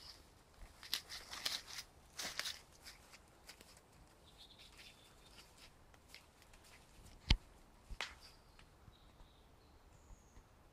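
Footsteps crunching through dry leaf litter and woodland undergrowth for the first few seconds, then quieter woodland with a few faint bird chirps. A single sharp snap about seven seconds in, with a smaller one just after.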